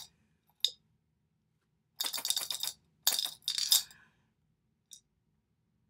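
Clear plastic packaging crackling and clicking as it is handled and turned over, in two short bursts about two and three seconds in, with a single light click before them.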